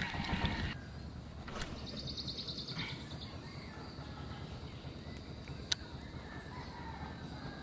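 Outdoor river ambience: a steady low wash of background noise, with a short, rapid high-pitched bird trill about two seconds in and a single sharp click near the six-second mark.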